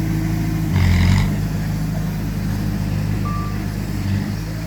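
Diesel engine of heavy earth-moving machinery running steadily, with a brief louder surge about a second in and a single short reversing beep about three seconds in.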